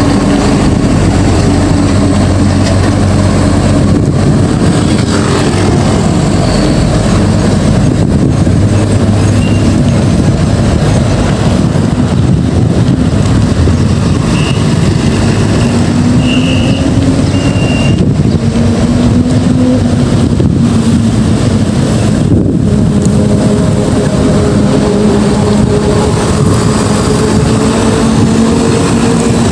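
Steady road traffic: motor vehicles running past, their engine notes slowly rising and falling over a constant loud rush.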